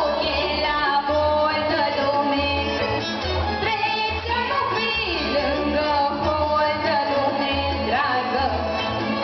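A woman singing a Romanian folk song into a microphone over amplified instrumental accompaniment with a steady bass beat.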